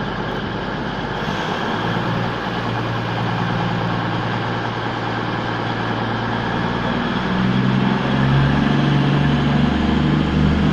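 Diesel engines of a Class 221 Super Voyager train running, their note stepping up and growing louder about seven seconds in as the train pulls away.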